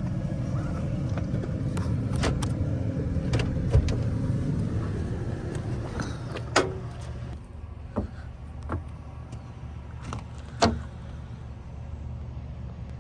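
Car or truck engine idling with a low rumble that drops away about seven seconds in, under scattered clicks and thumps of a vehicle door and of someone climbing onto a pickup truck's bed.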